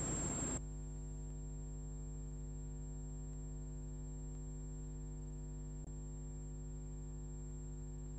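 Steady electrical mains hum, made of several low tones, with a thin high-pitched whine over it. A layer of hiss cuts off about half a second in, and there is a faint click near six seconds.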